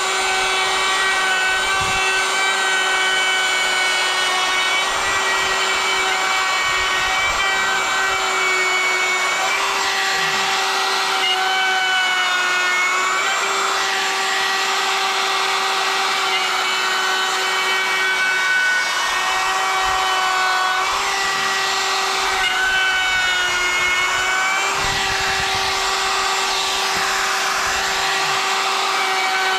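Compact trim router running with a steady high whine as its bit routes letters into a rough fir board. A rough cutting noise swells in and out as the bit works the wood, and the motor's pitch sags briefly twice under the heavier cuts.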